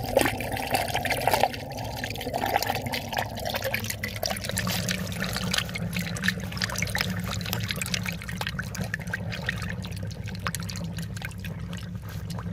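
Backed-up sewage draining freely down a cleared sewer pipe: a steady trickling, splashing flow of water pouring away, with a low steady hum underneath.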